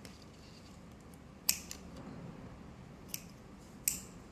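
Scissors snipping off excess cotton wool: three short, sharp snips, one about a second and a half in and two more near the end.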